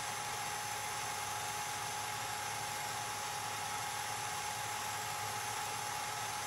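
8mm film projector running: a steady whirring hiss with a thin, constant whine through it.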